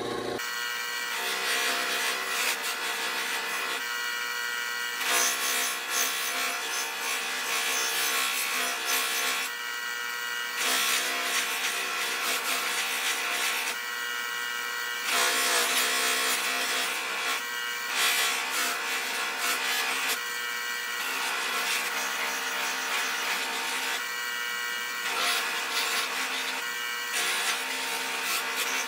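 Pedestal buffing machine running with its large cloth buffing wheel spinning, a steady motor hum under a rubbing hiss that swells every few seconds as a guitar body is pushed into the buff. This is the buffing-out stage of the guitar's paint finish after wet finish sanding.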